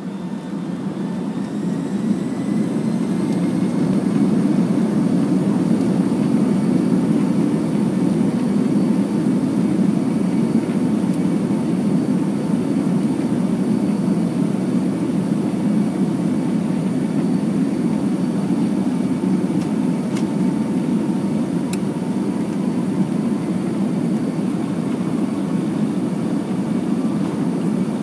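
Boeing 757-200 jet engines and airflow heard from inside the cabin, building over the first few seconds as the airliner powers up for takeoff, then running at a steady, loud level with a faint high whine. Two faint clicks come about two-thirds of the way through.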